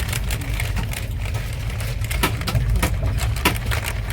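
A passenger train running, heard from inside the coach: a steady low rumble with irregular clicks and knocks over it.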